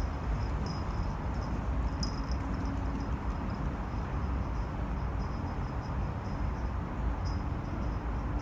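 Steady rumble of dense, slow-moving car traffic on a multi-lane urban expressway: engines and tyres blending into one continuous low noise.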